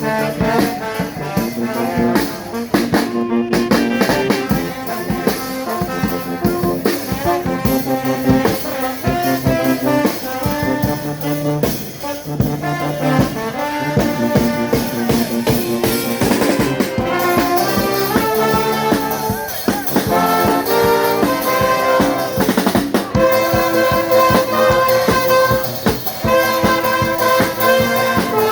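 A charanga, a Spanish street brass band, playing a tune: trumpets and trombones over a steady drum beat.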